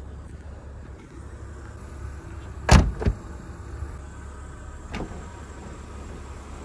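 Electric sunroof motor of a 1998 BMW 328is coupe running with a faint whine over a low steady hum. It is preceded by two heavy thuds about three seconds in and a click about five seconds in.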